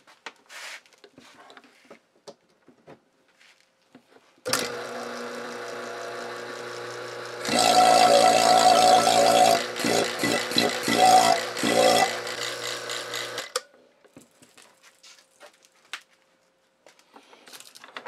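Electric vacuum pump being test run on its new power cord: a few small clicks as it is plugged in and switched on, then the motor and pump start with a steady hum about four and a half seconds in. It gets much louder and uneven about three seconds later, settles, and stops about thirteen and a half seconds in when it is switched off.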